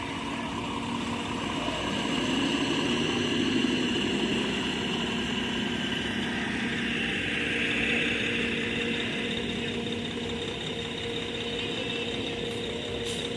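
An engine running steadily at idle, a constant mechanical hum.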